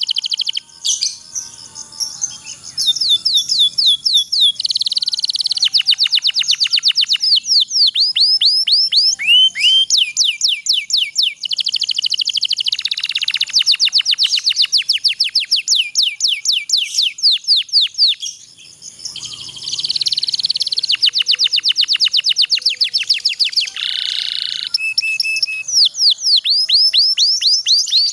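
Domestic canary singing long rolling trills: rapid runs of repeated down-slurred whistled notes, one phrase after another. There are short pauses about a second in and again about two-thirds of the way through, and a brief harsh buzzy note near the end.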